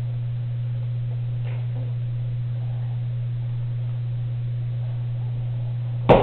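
Steady low hum, even in level throughout, with a single sharp knock near the end.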